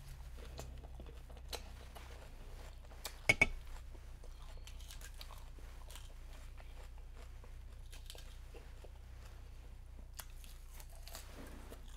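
Close-up chewing of a forkful of Caesar salad, with crisp lettuce crunching and small wet mouth clicks. There are two sharp, louder clicks about three seconds in.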